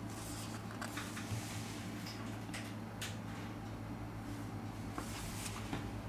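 Quiet room tone with a steady low hum, and a few faint clicks and taps as a smartphone is handled on a tabletop.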